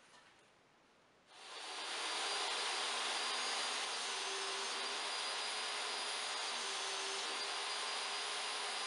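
DeWalt DWE7491RS jobsite table saw switched on about a second in: its universal motor spins up within about half a second, then runs steadily with the blade spinning free and not cutting, a steady whirr with a faint high whine.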